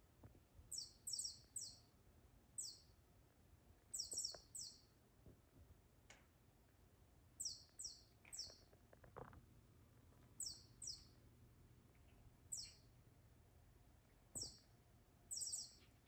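Chirping bird cat toy giving short, high, quickly falling chirps in clusters of one to three, every one to three seconds, as the cat paws and mouths it. Faint soft knocks and rustles from the cat handling the toy come in between.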